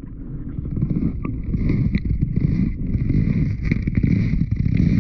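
Muffled low rumble of water moving around an underwater camera's waterproof housing, with a few faint ticks.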